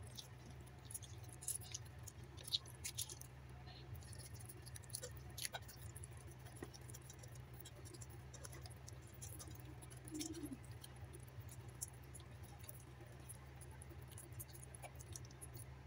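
Faint wet squelching and small crackling clicks of a hand rubbing turmeric, paprika, salt and lemon juice into raw fish in a stainless steel colander, over a low steady hum.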